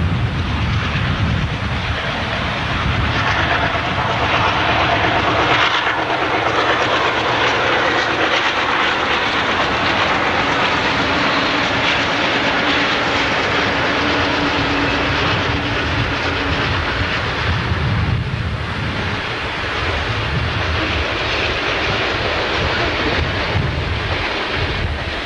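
A long freight train passing close by: the low rumble of its MLW-led diesel locomotives at the start, then a long string of tank cars rolling past with steady steel wheel-on-rail noise.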